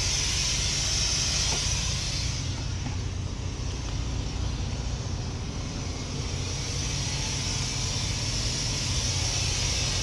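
Steady hiss of compressed air leaking from a truck's air-operated engine fan clutch, over a steady low drone. The leak is at the clutch itself, which the driver puts down to a failed gasket at a joint.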